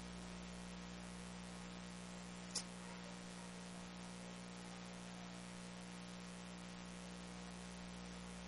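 Faint steady electrical mains hum with a light hiss, and one faint click about two and a half seconds in.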